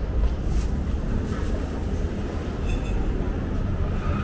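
A steady low rumble of background noise, with a faint, brief high tone about two and a half seconds in.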